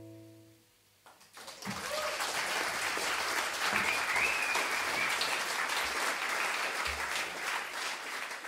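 The band's last chord, guitar and keyboard, holds as a steady tone and fades out; after about a second of silence the audience breaks into applause that carries on steadily, with a short whistle from the crowd about four seconds in.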